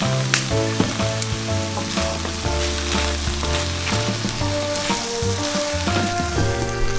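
Pork and kimchi sizzling as they are stir-fried in a frying pan, with scattered clicks of chopsticks against the pan, over background music.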